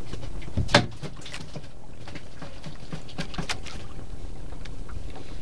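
A single sharp knock about a second in, then light clicks and rustling of hands working a fishing handline and hooked fish in a small wooden outrigger boat, over a steady low background of the boat on the water.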